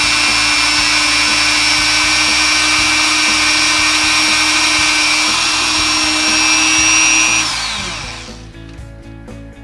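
Rotary tool spinning a felt cone buffing bit against a pistol's feed ramp, polishing it with red rouge: a steady high whine that winds down about seven and a half seconds in as the tool is switched off.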